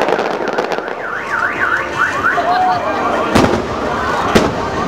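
A car alarm sounding in a repeating up-and-down wail that changes to a run of short falling tones partway through, over the noise of a fireworks display, with two sharp firework bangs about three and a half and four and a half seconds in.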